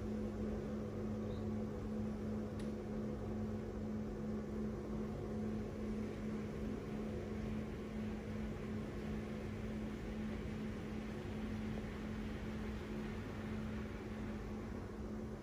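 Motorised blackout roller blind humming steadily with one constant low tone as it raises the shade.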